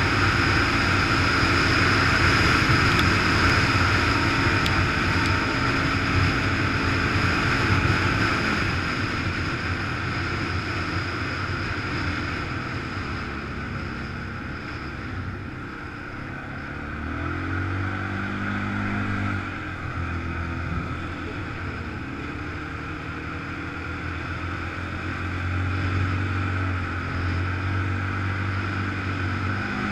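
Can-Am ATV engine running under way, steady and louder for the first several seconds, then easing off; twice later it revs up and drops back.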